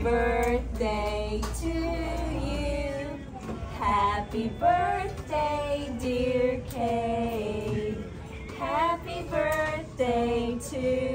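Several women singing a song together in unison, holding long notes that step from pitch to pitch.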